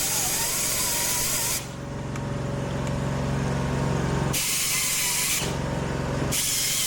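A steady hissing noise that cuts out abruptly twice, leaving a low steady hum underneath.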